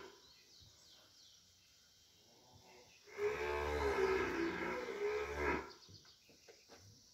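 Heifer in a difficult calving bellowing: one long moo of about two and a half seconds, starting about three seconds in, a sign of her distress while she strains to deliver.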